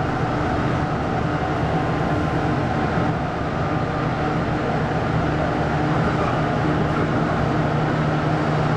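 Inside a moving AREX Airport Railway commuter train: the steady rumble of the car running along the track, with a steady low hum underneath.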